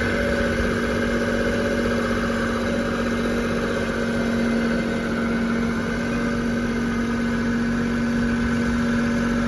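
Kubota diesel engine of a Toro TX1000 compact track loader running steadily at an even speed, with a constant hum.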